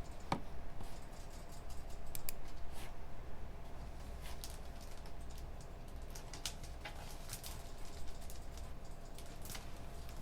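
Computer keyboard typing in scattered, irregular clicks, over a steady low hum.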